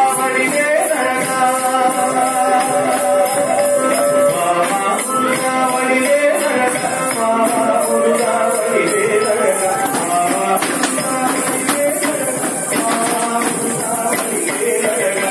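Tamil song playing with a gliding melody line over steady percussion and a continuous high jingling shimmer.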